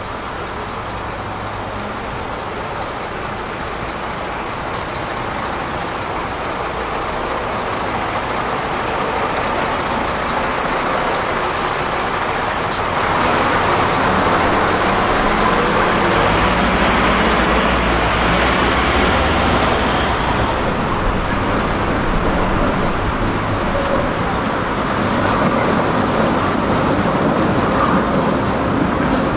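Urban street traffic: car and truck engines running and passing, a steady low rumble under tyre and road noise, which grows louder about halfway through as heavier traffic goes by.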